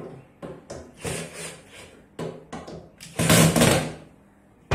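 Knocks, clicks and scrapes of engineered-wood board being handled on a box bed's headboard and its hinged door panel, with a louder rubbing scrape about three seconds in and a single sharp wooden knock at the very end.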